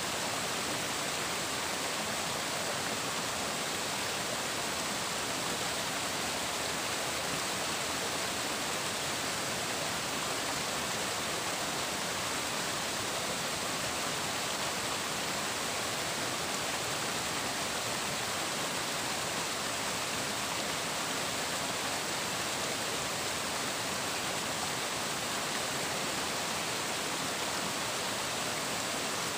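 Flowing water rushing steadily, an even hiss with no breaks or changes.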